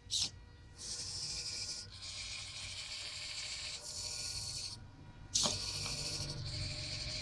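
Hobby servo motors of a small robot arm whirring in stretches of one to two seconds that stop and start as the arm moves between poses. A sharp click sounds about a quarter second in and another at about five and a half seconds.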